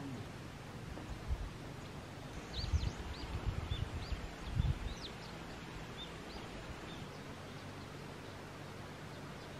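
Birds chirping: a scatter of short, high chirps from about two and a half to seven seconds in, over quiet outdoor background noise. A few low rumbling bumps come in the middle.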